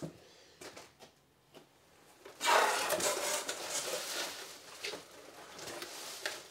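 Cardboard box being opened and rummaged through by hand: a few faint clicks at first, then from about two and a half seconds a burst of cardboard scraping and rustling as the flaps and contents are handled, easing to softer rustles and taps.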